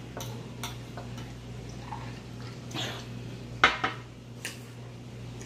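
Metal forks scraping and clinking against glass plates: scattered light clicks, with one sharper clink about three and a half seconds in, over a steady low hum.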